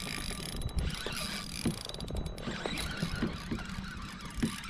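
Fishing reel being worked on a hooked fish: irregular mechanical clicking from the reel, a few clicks a second, over a steady low rumble.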